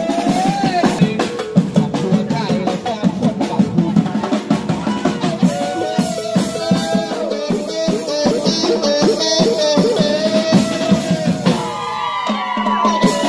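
A marching percussion band playing a fast beat on snare and bass drums, with a man singing a melody over it through a microphone.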